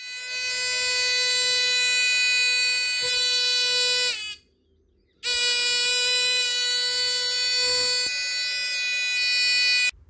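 Electronic buzzer of a transistor fire-detector circuit sounding a steady, loud, high tone: the IR receiver has picked up the flame held near it and set off the alarm. The tone cuts out about four seconds in with a brief downward slide, and sounds again about a second later.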